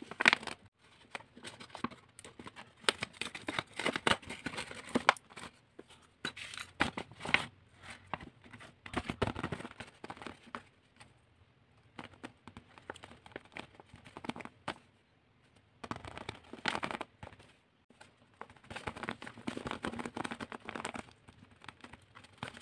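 Crinkling and rustling of tape-covered paper, in irregular bursts with sharp crackles, as a handmade paper pouch is opened and a tape-wrapped paper squishy is pulled out and handled.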